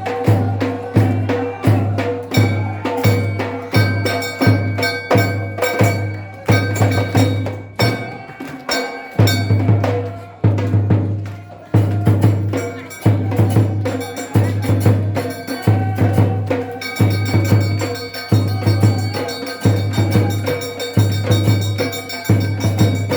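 Amazigh ahwash music: frame drums beating a steady rhythm, about three strokes every two seconds, with percussive strikes over them. The low drum drops out briefly about eight seconds in.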